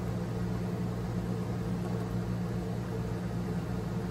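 Steady low hum with an even hiss, the background drone of a running motor or appliance in the room.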